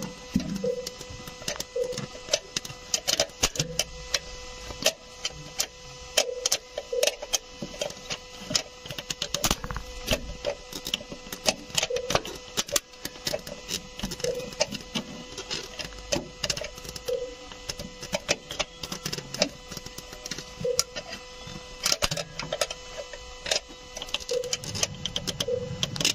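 Irregular sharp metallic clicks and taps from hand work on the car's starter motor terminals, over a faint steady hum.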